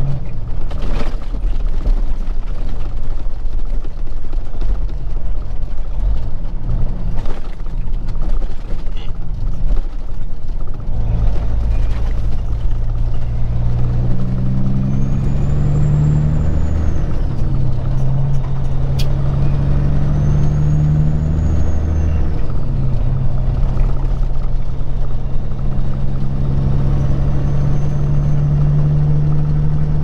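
Peterbilt 379's diesel engine heard from inside the cab as the truck drives. From about ten seconds in, the engine pulls harder and its note climbs, dropping back and climbing again a couple of times as it shifts up through the gears.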